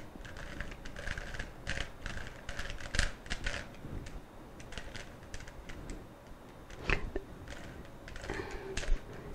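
Plastic puzzle cube layers being twisted by hand: a run of quick clicks and clacks, with louder clacks about three and seven seconds in.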